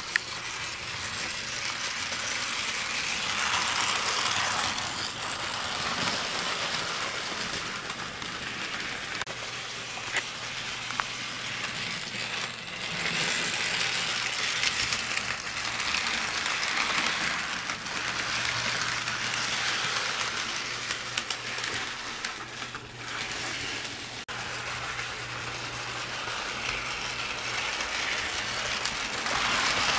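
HO scale model steam locomotive and its cars running on the layout's track: a continuous clattering rattle of small wheels over rails, with a steady low hum underneath. It swells and fades several times as the train comes past and moves away.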